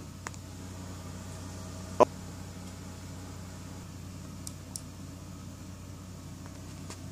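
Quiet room tone with a steady low hum, a few faint clicks, and one short, sharper knock about two seconds in.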